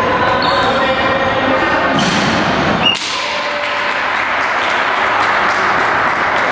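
Sound of a tchoukball game in a sports hall: players' voices and shouts over steady hall noise. Two sharp thumps of the ball land about two and three seconds in, and fainter knocks and squeaks follow.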